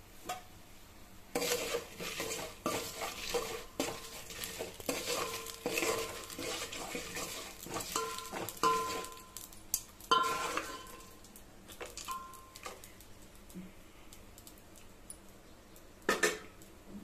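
A metal spoon stirring and scraping around an aluminium pot of peanuts, dried red chillies and curry leaves frying in oil, the pot ringing briefly at times, with oil sizzling. The stirring stops about two-thirds of the way through, and a single metal clink comes near the end.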